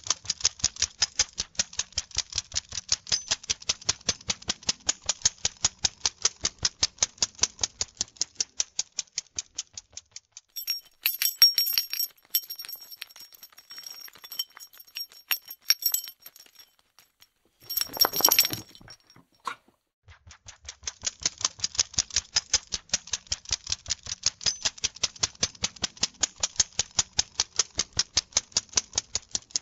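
Dog scratching itself, its claws raking through fur in fast, even strokes of about five a second. The rhythm gives way to a sparser, irregular stretch of scratching with a brief louder burst, then picks up again.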